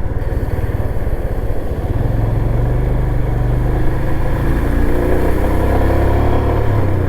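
Royal Enfield Himalayan's single-cylinder engine running steadily under way. From about two seconds in it grows louder and its pitch rises slowly as the bike gathers speed.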